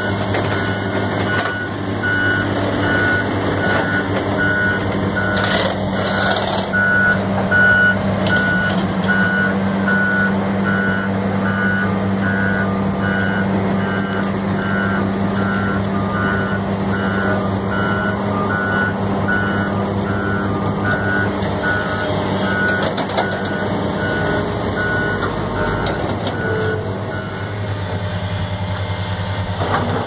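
Heavy diesel construction machinery running with a steady low drone, while a backup alarm beeps about once a second until near the end.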